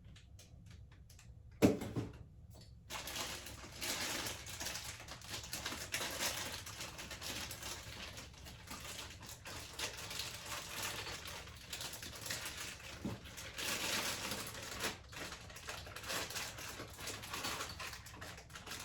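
Continuous rustling and crinkling of handled packaging and parts, with light clicks, after a single sharp knock about two seconds in.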